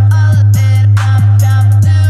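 Background music with a steady beat of about two strokes a second over a held deep bass note and sustained synth chords.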